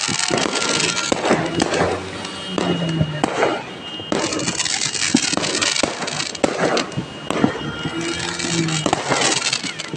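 Dense, continuous crackle and popping of many fireworks and firecrackers going off at once, in repeated surges. Music plays underneath, with a few held tones about a third of the way in and again near the end.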